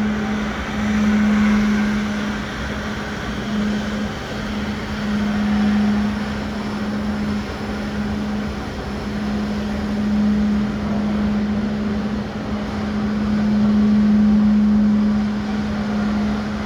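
Jet engines of a taxiing Airbus A380 running at low power: a steady drone with a constant low hum that swells and fades every few seconds.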